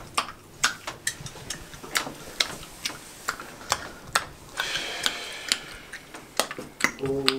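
A clock ticking steadily, about two ticks a second.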